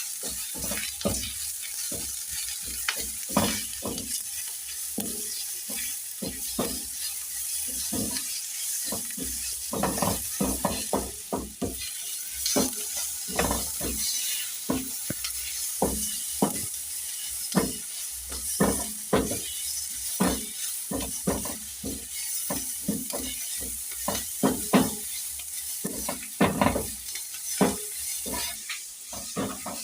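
Food sizzling in a hot frying pan, with a spoon stirring and scraping against the pan in irregular strokes, about one or two a second.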